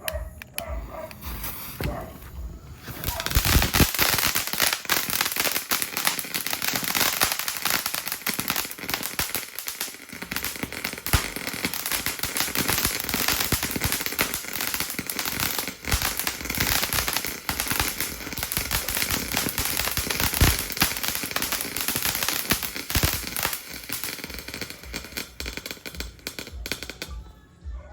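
Taal Volcano firework fountain burning: a steady hiss thick with dense crackling. It builds up about three seconds in and dies down near the end.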